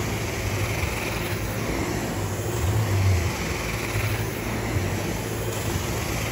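Carpet-cleaning extraction wand worked back and forth across commercial carpet: a steady rushing hiss of suction and spray over a low machine hum, the hiss swelling and fading with each stroke of the wand.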